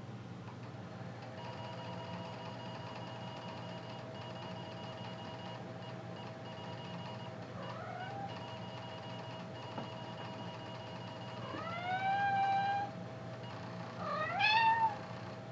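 A cat meows three times, each call rising in pitch, the first faint and the last two louder. Underneath, a steady whine of several thin tones comes from the Atari XF551 floppy drive running as the computer loads.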